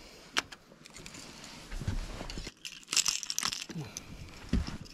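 Handling noises: a sharp click under half a second in, then knocking and rustling, with a louder burst of rustling about three seconds in.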